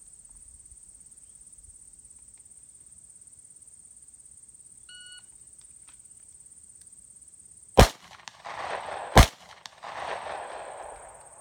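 A shot timer gives one short start beep. About three seconds later a Smith & Wesson M&P9 Shield 9mm pistol fires two shots about a second and a half apart, each trailing off over about a second. This is a draw from concealment: first shot about 2.9 s after the beep, with a 1.38 s split to the second.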